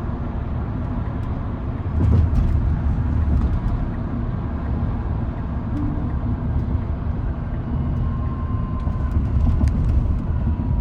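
Steady low road and tyre rumble with wind noise inside the cab of a Tesla Cybertruck CyberBeast at highway speed, pulling a loaded tandem-axle trailer. The electric drivetrain adds no engine sound. The rumble swells briefly about two seconds in, as over a rough patch of road.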